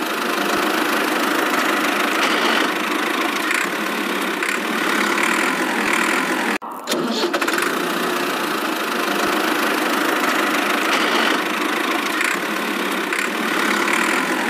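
Steady engine running, dropping out briefly a little before halfway and then resuming.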